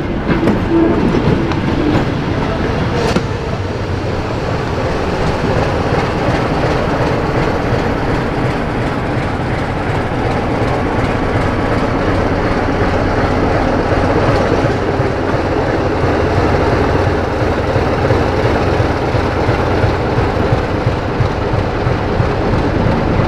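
Class 25 diesel locomotive running steadily as it moves slowly past coupled to a GWR brake van, its Sulzer six-cylinder engine giving a level drone. A single sharp knock comes about three seconds in.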